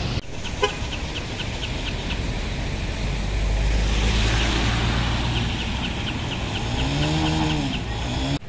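Motorbike and car traffic on a flooded street: steady engine and water noise, with a low engine rumble swelling a few seconds in as a vehicle passes close. Two runs of fast high ticks are heard, and near the end a short tone rises and falls in pitch.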